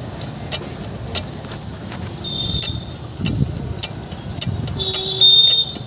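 Worn dual-mass flywheel of a Mahindra XUV500 being rocked back and forth by hand, giving a string of sharp metallic clicks and knocks as its two halves clunk through excessive free play. The mechanic ties this to weakened internal springs. A brief high ringing squeal comes twice, the second near the end and loudest.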